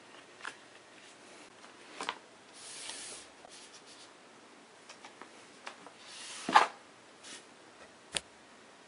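Sunpak Ultra 4STM tripod legs and flip-lever leg locks being handled: a few scattered clicks with light rubbing between them, the loudest click about six and a half seconds in.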